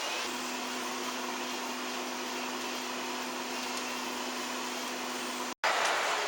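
Laundromat machines running: a steady whirring hum with a low, steady tone. It cuts out suddenly about five and a half seconds in, and a louder rushing noise follows.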